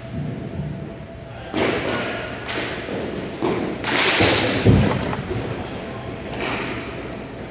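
A series of irregular thuds and knocks, about six in all, each dying away over a moment; the loudest comes just under five seconds in.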